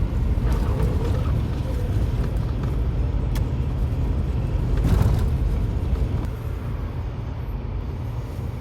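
Steady low rumble of a car on the move, engine and road noise, briefly louder about five seconds in and easing off a little after that.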